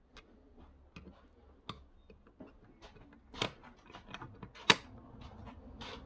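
Scattered light clicks and taps of small plastic and metal fittings being handled and fitted by hand at the front of an outboard motor. A sharper click comes about three and a half seconds in, and the loudest one just under five seconds in.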